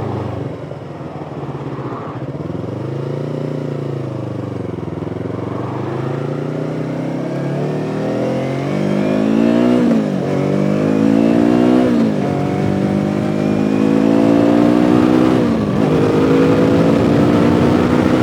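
2017 Yamaha R3's 321 cc parallel-twin engine and exhaust under way. The revs rise and fall once, then the bike accelerates through the gears, with three upshifts in the second half, each heard as a sudden drop in pitch before the engine climbs again.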